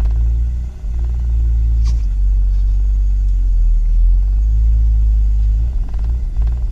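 BMW M54 straight-six engine idling roughly, a low rumble that wavers and dips unevenly, the sign of a broken mass air flow (MAF) sensor. A single brief sharp tick about two seconds in.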